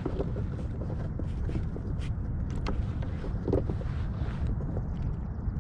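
Wind noise on the microphone, with scattered small knocks and clicks.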